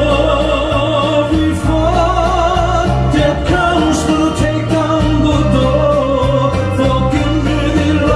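A woman singing with vibrato through a PA system over a loud amplified backing track with a stepping bass line and a steady drum beat.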